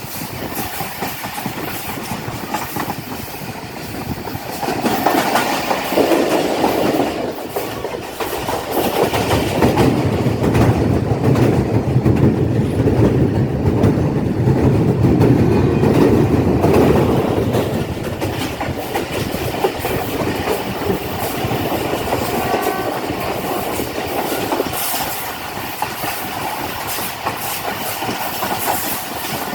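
Passenger train running on the rails, wheels clattering over the rail joints. A heavy low rumble builds from about five seconds in, peaks in the middle and eases off again after about eighteen seconds.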